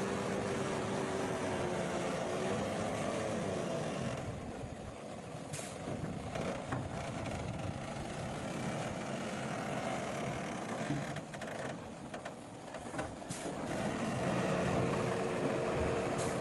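Heavy diesel earthmoving machinery, dump trucks and a bulldozer, running steadily. It is quieter through the middle stretch, with a few brief sharp sounds.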